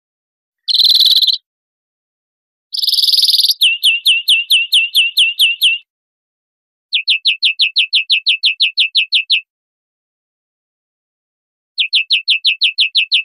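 European greenfinch singing: a buzzy, drawn-out wheeze about a second in, a second wheeze that runs straight into a fast trill of falling notes, then two more trills of about six notes a second with short pauses between them.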